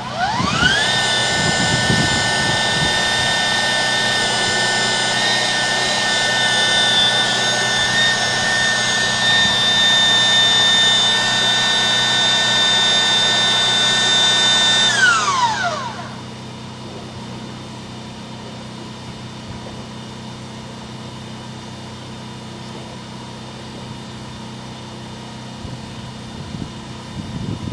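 Electric power tool motor spinning up with a rising whine, running at a steady high whine for about fifteen seconds, then winding down and stopping; a steady low hum continues underneath.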